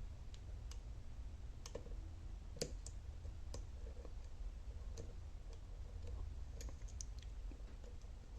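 Small, irregular metallic clicks from a pick and tension tool working the pins inside an Alba dimple lock during picking, one or two a second, over a low steady hum.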